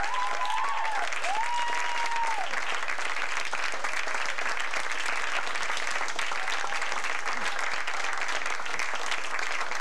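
Live theatre audience applauding steadily, with a few brief high calls rising over the clapping in the first couple of seconds.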